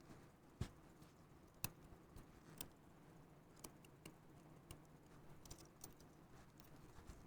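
Faint, scattered small metallic clicks and ticks from watchmaker's tweezers and screwdriver working on a pocket-watch movement as small wheels are unscrewed and lifted out. The two sharpest clicks come a little under a second in and about a second later.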